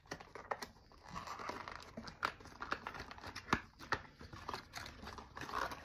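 A small cardboard product box being opened by hand: the pull tab tearing open, then paper and cardboard rustling and crinkling with scattered sharp clicks as the flaps and contents are handled.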